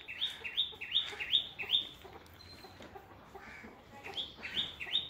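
A bird chirping rapidly: short, high, rising chirps at about three to four a second, in two runs with a pause of about two seconds between them.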